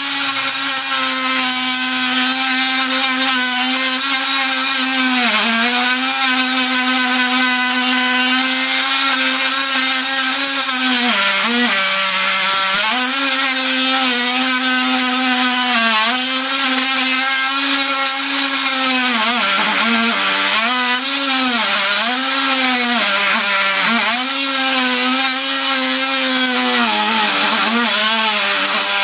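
Makita BTM50 cordless oscillating multi-tool running and cutting, a steady buzzing note whose pitch dips again and again as the blade bites under load, more often in the second half.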